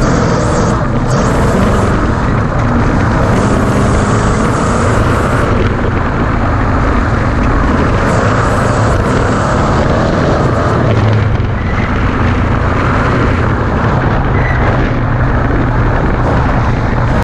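Ford Ranger desert race truck's V8 engine running hard at speed, under a loud rushing mix of wind and rough off-road noise.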